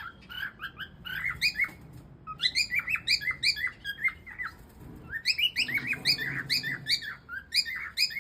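Cockatiel singing: a quick run of short chirped and whistled notes, in two bouts with a brief pause about halfway through.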